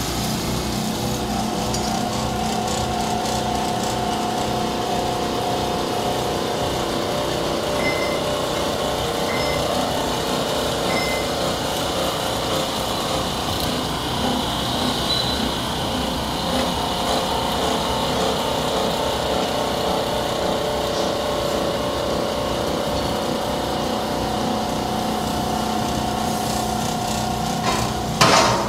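Automatic polishing machine running steadily: its motor-driven buffing and abrasive wheels spin with a constant hum and whine while a flat metal workpiece is polished against them. A brief loud knock near the end.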